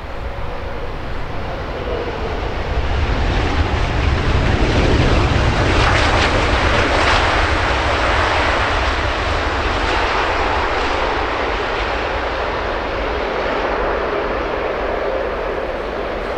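Jet airliner on final approach passing close by, its engine noise building to a peak about six seconds in and then slowly fading.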